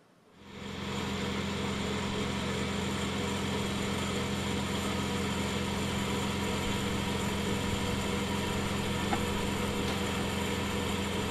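Steady machine hum: a low drone with several fixed tones above it, fading in over about the first second and then holding level.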